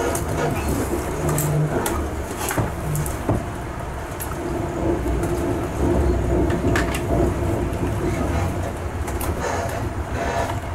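Passenger train running, heard from inside the carriage: a steady low rumble with scattered clicks and knocks from the wheels on the track.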